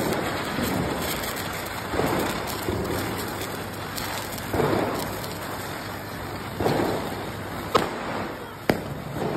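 Ground firecrackers burning, a continuous crackling fizz that swells every couple of seconds, with two sharp bangs near the end.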